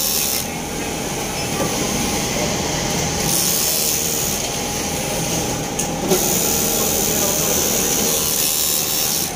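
Industrial overlock machine stitching a sleeve seam in short runs, its high whir coming and going over a steady din of other machines.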